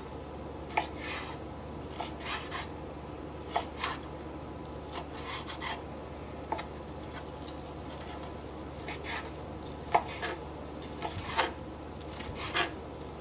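Chef's knife chopping through stacked slices of deli ham on a wooden cutting board: irregular knocks of the blade hitting the board, in short clusters with pauses between, over a steady low hum.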